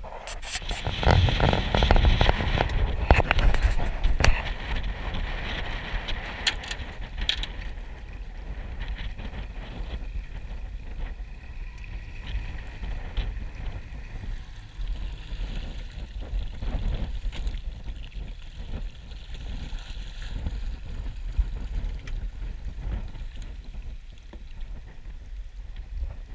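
Wind buffeting the microphone on a small fishing boat on open water, with the rumble of boat and water noise underneath; gusty and crackly for the first several seconds, then steadier.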